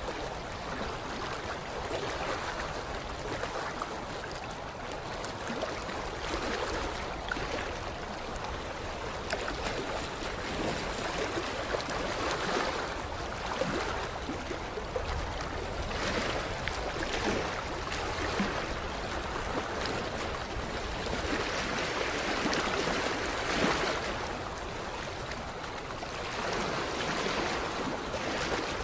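Creek water lapping against a shoreline: a continuous splashing wash that swells and eases every few seconds, with small sharp splashes among the laps.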